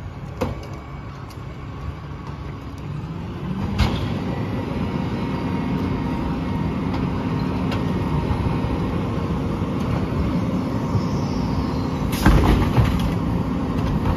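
Diesel engine of a Peterbilt 567 garbage truck running, speeding up about four seconds in and then holding a steady higher note. Near the end, several knocks as trash is loaded into the rear-loader hopper.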